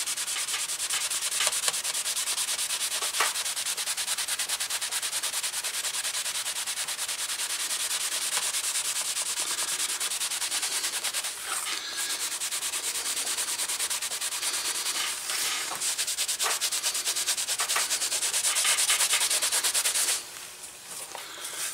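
A green pad rubbed fast over black-dyed holster leather in rapid back-and-forth strokes, a steady scrubbing that stops about twenty seconds in. The friction is buffing the wax in the leather conditioner up to a shine.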